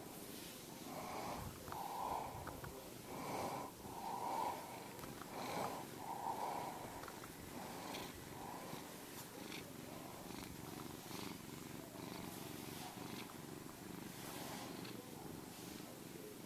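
Domestic cat purring close to the microphone while being stroked, the purr swelling about once a second for the first several seconds, then running evenly.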